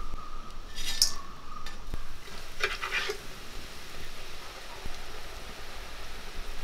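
Hot coconut oil sizzling and bubbling steadily as urad dal murukku deep-fry in a metal pan. A metal slotted spoon clinks and scrapes against the pan about a second in and again around three seconds.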